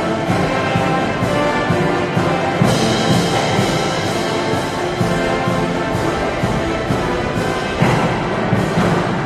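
Military band playing brass music over drums and timpani with a steady beat.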